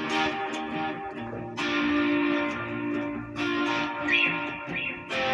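Guitar music: chords strummed and left to ring, a new chord struck about every two seconds.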